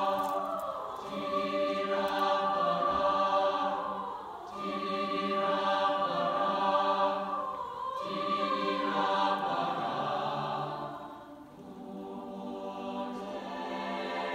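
Mixed high-school chamber choir singing held chords in phrases a few seconds long, the sound swelling and easing, with a marked dip about eleven seconds in before the voices build again.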